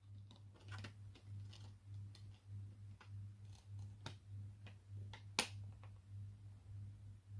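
Blu-ray discs being taken off the hubs of a plastic disc case: faint clicks and handling sounds, with one sharper click about five seconds in.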